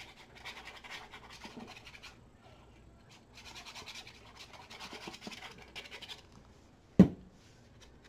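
Paper being handled off to the side: several bursts of scratchy rustling as sheets slide and rub, then one sharp knock about seven seconds in as something is put down hard on the table.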